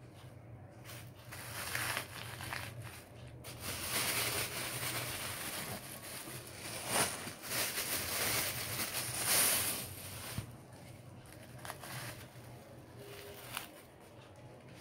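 Thin clear plastic wrapping bag crinkling and rustling as hands handle it, heaviest in the first ten seconds with a few sharper crackles, then dying down to occasional light rustles.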